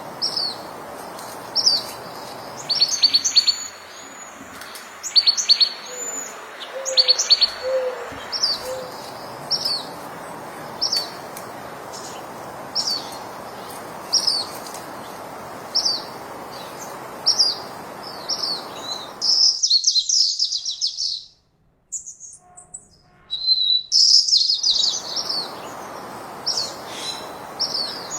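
Birds chirping: one repeats a short high call about once a second, with busier flurries of chirping now and then, over a steady background hiss that cuts out for a few seconds about twenty seconds in.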